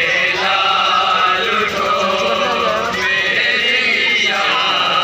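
A crowd of men chanting a Muharram mourning lament, many male voices overlapping.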